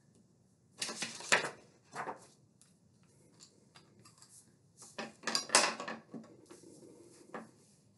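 Sharpie marker strokes on paper clipped to a whiteboard easel: scratchy drawing sounds, a longer run about a second in and again around five seconds in, with shorter strokes between.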